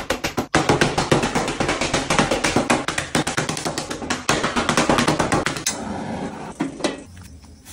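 Hand-pulled biang biang noodle dough slapped against a wooden table in a fast, even run of sharp thwacks. Near the end the slapping fades out and a couple of clicks follow as a gas wok burner is switched on.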